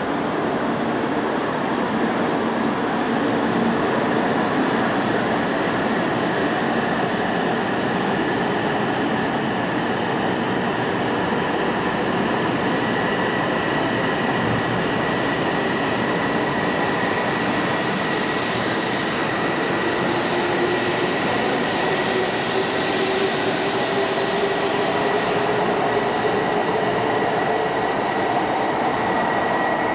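E2 series Shinkansen train pulling out of the station and accelerating past: steady running noise with a whine that slowly rises in pitch as it gains speed.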